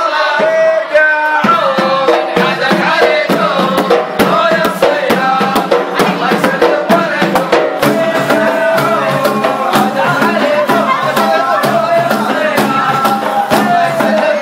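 Men's group singing a Gulf folk song over a steady beat of hand-struck frame drums.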